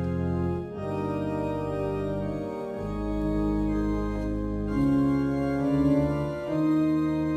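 Organ playing slow, held chords that change about every two seconds.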